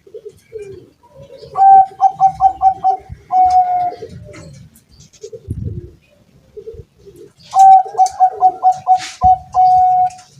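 A Bangkok zebra dove (perkutut) singing its cooing song twice: each phrase is a quick run of short notes ending in a longer held note.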